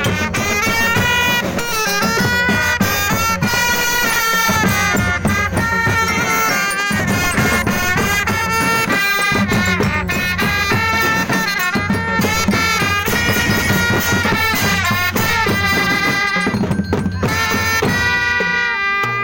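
Music: a pitched melody line holding and bending long notes over steady drumming and percussion.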